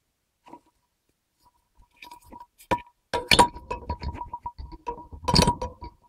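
Irregular clinks and knocks inside a dishwasher's stainless-steel tub, among its wire racks, starting about two seconds in and loudest a little past three seconds and again near the end, with a thin high tone that comes and goes between them.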